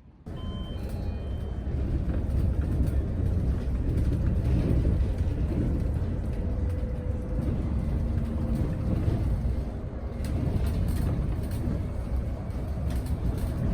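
Bus engine and road rumble heard from inside the cabin of a moving bus, with light rattles and clicks in the second half.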